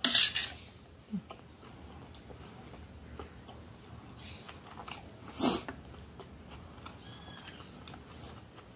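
Eating sounds: a fork clattering and scraping on a stainless steel plate, loudest right at the start and again about five and a half seconds in, with chewing and small clicks between.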